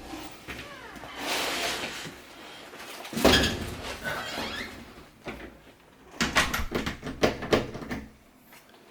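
Door being swung shut, with a squeak as it moves, then a loud knock about three seconds in as the new Master Lock's latch bolt strikes the door frame. A run of sharp clicks and knocks follows later, as the latch is worked against the strike plate.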